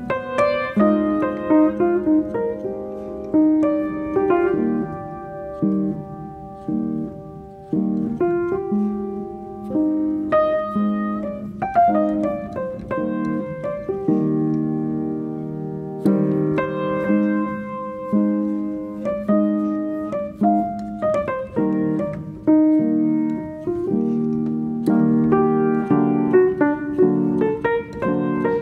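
Background piano music, a run of struck notes and chords.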